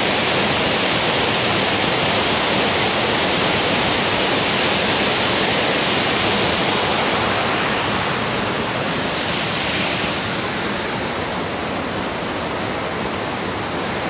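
Waterfall pouring down in a loud, steady rush of fast-falling water, a little softer from about ten seconds in.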